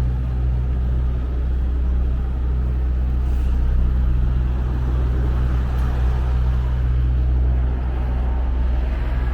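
Steady low mechanical rumble with a constant deep hum and a noisy wash over it, unchanging throughout.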